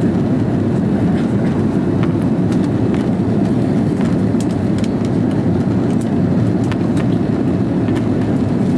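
Steady cabin noise of an Airbus A330-300 climbing after takeoff: the drone of engines and airflow heard inside the cabin from a window seat, strongest low down, with a few faint ticks.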